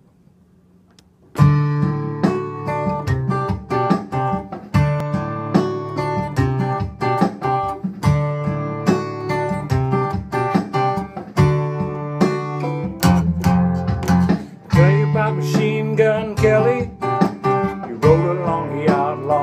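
Steel-string acoustic guitar played solo, a picked and strummed intro with a bass figure that repeats about every three seconds. It starts about a second in, after a moment of near silence.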